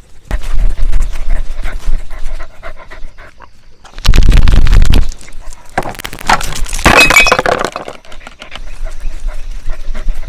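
A dog panting close to the microphone, among rubbing and knocking of the camera it is wearing and a few metallic clinks. A loud low rumble comes about four seconds in, and a harsh scraping burst follows near seven seconds.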